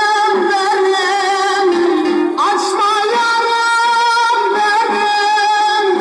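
Music: a voice singing held, wavering notes over a plucked-string accompaniment.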